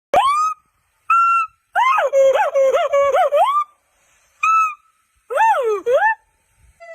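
A monkey's high, whistle-like calls. It opens with a rising call and a short call about a second in, then a fast warbling run of calls that swoop up and down, another short call, and two more swooping calls near the end.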